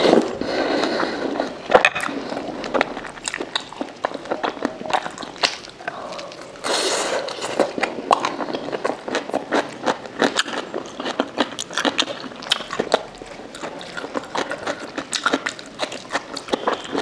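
Close-miked eating sounds: a person slurping spicy momo soup and chewing with many small wet mouth clicks. There is a slurp right at the start and a longer slurp about seven seconds in.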